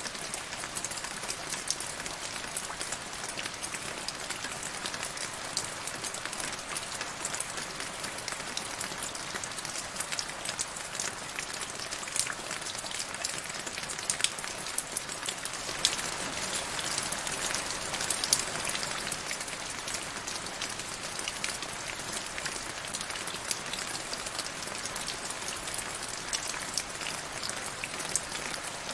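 Rain falling into a shallow puddle over grass: a steady hiss of many individual drops ticking on the water. It grows a little heavier about halfway through, with a few louder drops.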